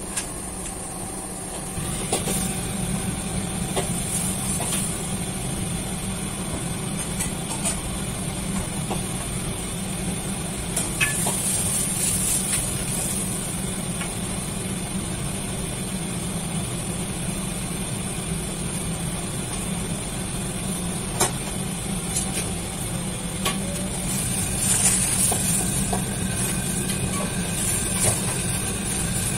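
Commercial kitchen din: a steady low rumble from the extractor hood fan and gas wok burner, with a constant high hiss, growing louder about two seconds in. Short metallic clinks of utensils on steel bowls and woks are scattered through it.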